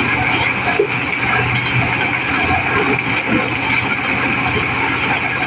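Mobile corn sheller running steadily under load: its engine and threshing drum make an even, continuous mechanical noise as unhusked cobs are fed in and shelled kernels pour out of its chutes.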